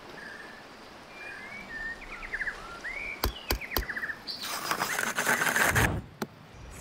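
Small birds chirping and trilling, then a few sharp clicks, then about a second and a half of loud rasping as a plastic bottle is drawn against a multitool blade and cut into a strip of cordage.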